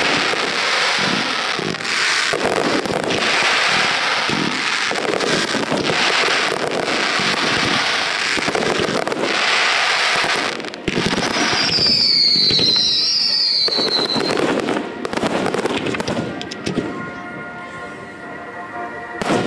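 Fireworks display: dense, continuous crackling and bangs from shell bursts and fountains. About twelve seconds in, a high whistle wavers for about two seconds, and the crackle thins out near the end.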